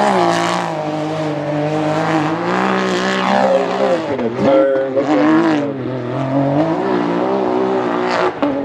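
Race UTV's engine revving hard under full throttle on a steep hill climb, its pitch rising and falling again and again as the throttle is worked and the tyres bite and spin.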